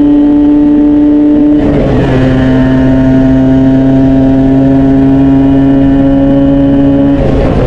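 Small 50cc two-stroke single-cylinder Honda motorcycle engine running at high, steady revs. Its pitch drops a little about one and a half seconds in, then holds steady, and the revs start to fall near the end.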